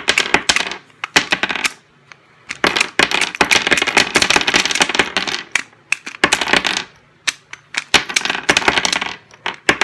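Brass rifle cartridges being pushed one by one out of an AR-15 magazine with the Strip Lula loader's unloading tab. Each one clicks free of the feed lips under spring tension and clinks onto a wooden tabletop. The clicks come in quick runs with short pauses between.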